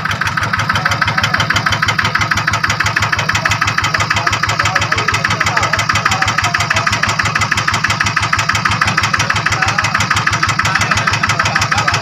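Single-cylinder diesel engine of a Quick two-wheel hand tractor running steadily at idle, with a rapid, even exhaust beat.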